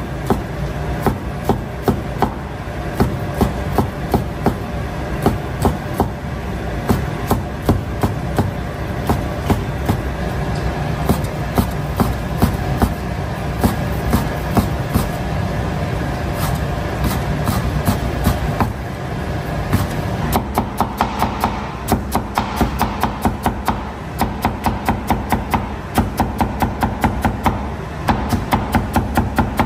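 Chinese cleaver chopping on a wooden cutting board: irregular strikes while a ham sausage is cut into strips, then, from about twenty seconds in, a quicker, even run of about five chops a second while a cucumber is shredded. A steady background noise runs underneath.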